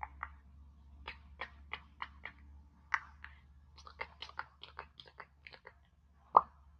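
Close-miked wet mouth sounds: a quick, irregular run of tongue and lip clicks and smacks, with one louder smack near the end.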